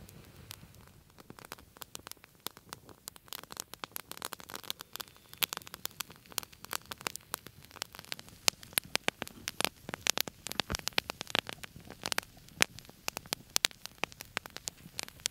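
Newly lit campfire of dry pine needles, grass and twigs crackling and popping, sparse at first, then thick and rapid from a second or two in as the flames take hold.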